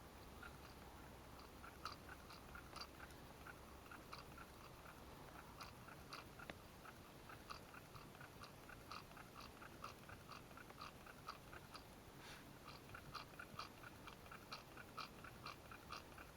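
Faint, fairly regular clicking, about three a second, from a small ice-fishing reel as line is let out down the hole to find the depth. A brief rustle about twelve seconds in.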